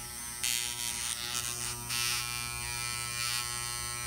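Skeleton hair clipper's electromagnetic motor running with a steady electric buzz while the loosened blade is shifted into alignment over the guide blade.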